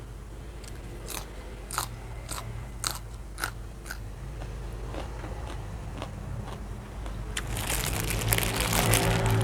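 Close-mic biting and chewing of crunchy food, with several sharp crunches about half a second apart early on. Near the end it turns into a louder, dense crackling.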